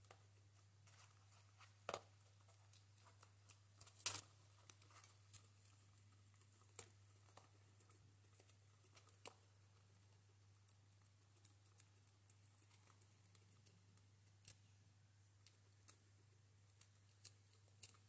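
Two guinea pigs eating dry food mix from a bowl: faint, irregular crunches and clicks, the loudest about two and four seconds in, over a faint steady low hum.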